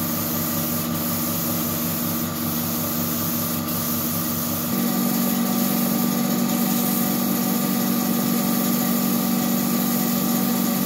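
Gravity-feed spray gun hissing as it sprays two-pack paint, over a steady machine hum. About five seconds in, a low pulsing drops away and the hum grows stronger.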